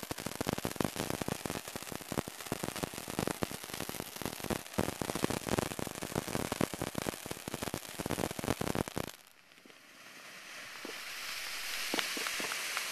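Ground fountain firework spraying sparks, with a dense, fast crackling for about nine seconds. Then the crackling stops and a smooth hiss takes over, growing steadily louder, with a few pops near the end.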